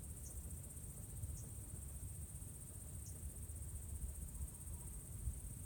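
Steady, unbroken high-pitched chorus of night insects, over a low background rumble.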